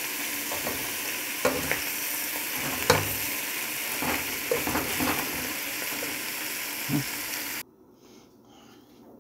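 Cabbage and meat frying in a metal pan, sizzling steadily while a utensil stirs through it, with a few sharp clicks against the pan. The sizzling cuts off suddenly near the end.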